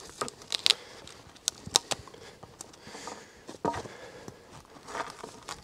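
Knife blade carving a spruce paddle shaft, pulling shavings off the wood: short scraping crackles that come at irregular intervals.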